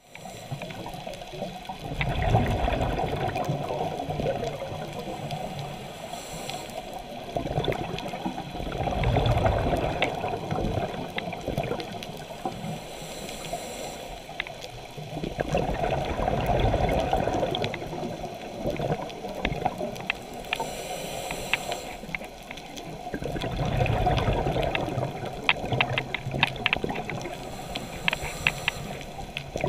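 Scuba diver breathing through a regulator underwater, the steady cycle of open-circuit scuba. Each breath is a short hiss of inhalation followed by a louder low rush of exhaled bubbles lasting two to three seconds. About four breaths come roughly seven seconds apart, with scattered faint clicks between them.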